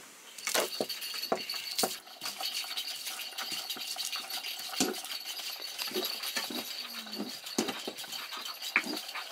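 Garlic cloves being crushed with a hand-held stone on a flat stone grinding slab (silauto): irregular knocks and scrapes of stone on stone.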